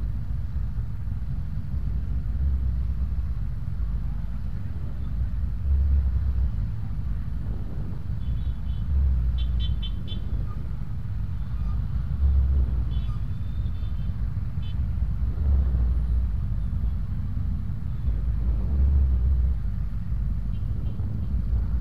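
Low engine rumble of scooters and cars crawling in a dense traffic jam, swelling every few seconds as the motorbikes edge forward. A few short high-pitched toots sound briefly along the way.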